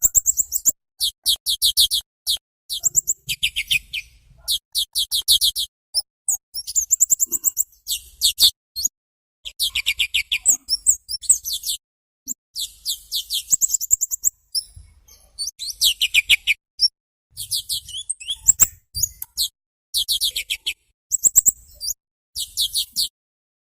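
Small songbird singing short, rapid, very high-pitched chirping trills, about a dozen quick phrases with sudden silent gaps between them.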